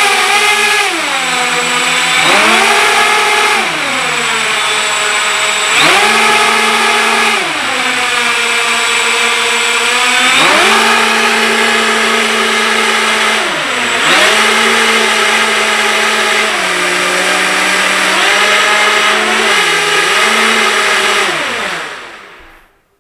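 Electric drive motors of an RC model boat spinning its propellers on dry ground, a whine that rises and falls in pitch over and over as the throttle is pushed and eased, then winds down and stops near the end.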